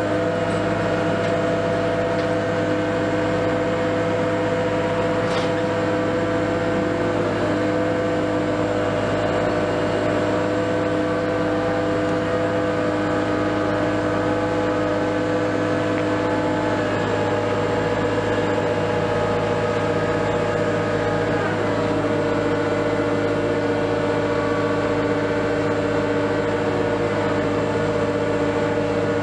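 Liebherr LTM 1750-9.1 mobile crane's diesel engine and hydraulics running at a steady speed, a constant droning hum with a whine on top; the pitch shifts slightly about three quarters of the way through.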